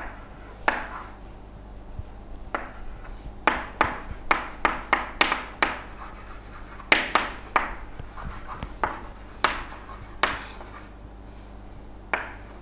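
Handwriting: a series of short scratching strokes of a pen or marker on a writing surface, bunched in a quick run a few seconds in and more spaced out after.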